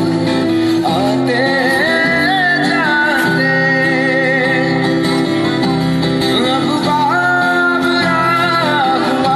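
A man singing a slow melody while accompanying himself on an acoustic guitar: a live solo acoustic song.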